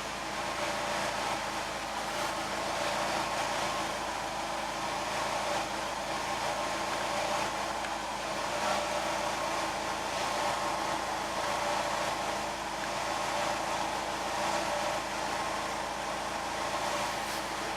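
VW Jetta Mk2's 1.8 GX four-cylinder engine running steadily while cold, with the strange knock the owner is trying to trace.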